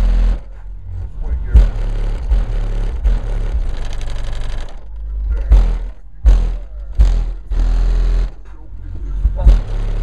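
Two RE Audio 18-inch car subwoofers playing bass-heavy rap music at high volume, heard from outside at the rear of the vehicle: loud, deep bass hits with a rapped vocal over them.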